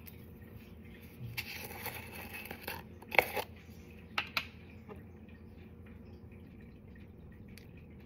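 Plastic screw lid being twisted off a jar of granulated chicken bouillon: a scraping rasp for about a second and a half, then a few sharp clicks as the lid comes free and is put down.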